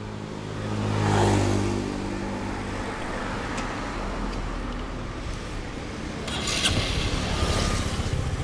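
Roadside traffic: a vehicle passes about a second in, its engine note swelling and then dropping in pitch as it goes by. A low steady rumble follows, with another hissing pass near the end.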